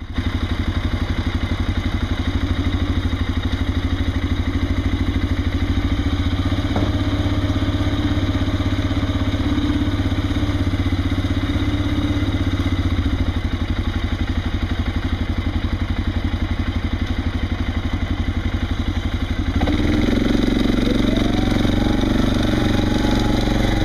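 Farm tractor engine idling with an even, rapid throb. About twenty seconds in it gets louder, and a faint whine rises and falls over it.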